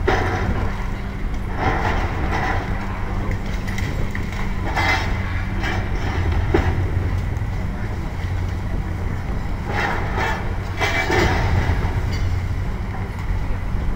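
Diesel excavator engine running steadily under load while its arm tears into a concrete building, with several bursts of crashing and clattering as broken concrete and debris fall.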